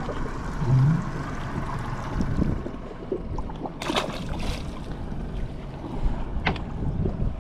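Steady wind and water noise on a fishing boat at sea, with two sharp knocks about four and six and a half seconds in.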